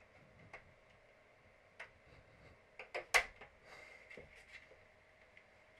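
Plastic snap-fit clips of an Xbox One case clicking as the cover is pried off by hand: scattered light clicks, the loudest a sharp snap about three seconds in, followed by a few faint ticks.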